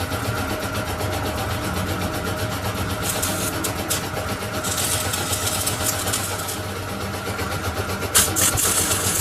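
Metal lathe running steadily while turning a silage machine head roller, with bursts of high hissing scrape as the cutting tool bites into the metal, the longest about halfway through. Near the end a sharp clank is followed by more cutting.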